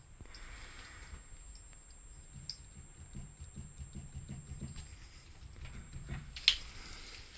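Car steering rack knocking: a run of irregular low knocks, with one sharp click about six and a half seconds in. The knocking is the sign of a worn steering rack.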